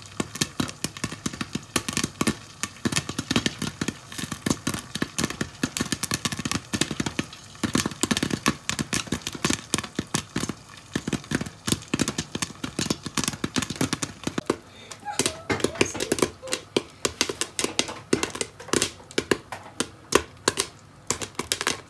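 Popcorn kernels popping rapidly in a covered pan of hot oil and butter: a dense, irregular run of sharp pops, several a second.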